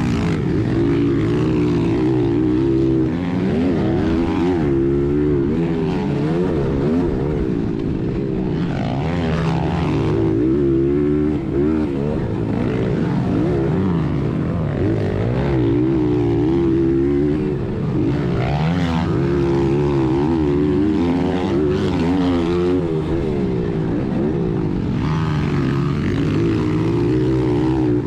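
1996 Honda XR100R's air-cooled four-stroke single engine being raced, heard from on board, its pitch rising and falling again and again as the throttle is opened and closed through corners and over jumps.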